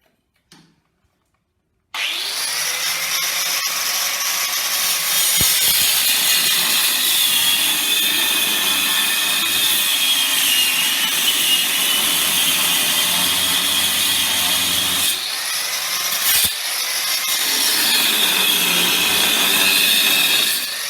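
Handheld power tool starting suddenly about two seconds in and running steadily under load, its high whine wavering as it works, most likely cutting into the tractor's seized, rusted nuts; it eases briefly about three-quarters of the way through.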